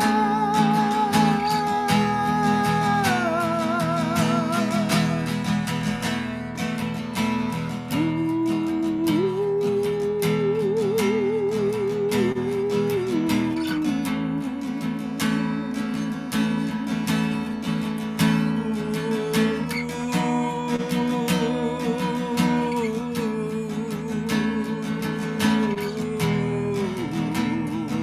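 Acoustic guitar strumming under a melody of long held, wavering notes, a wordless vocal line that steps between pitches.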